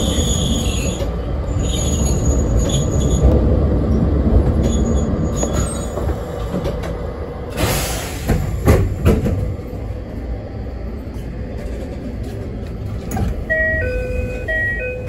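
Narrow-gauge electric train standing at the terminal platform, with a low rumble that fades over the first few seconds. A short rush of air-like noise comes about eight seconds in, followed by a few knocks as the doors open. A short electronic chime of a few stepped notes plays near the end.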